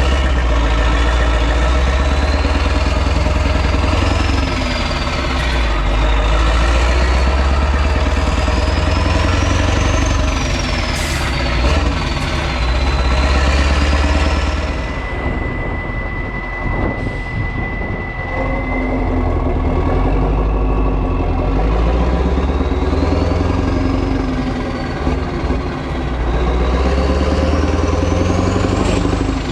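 Renault Magnum's 16.4-litre Mack E9 V8 diesel running loud on an open exhaust as the truck drives. The turbo whistle rises and falls several times, easing off in a quieter lull midway before climbing again near the end.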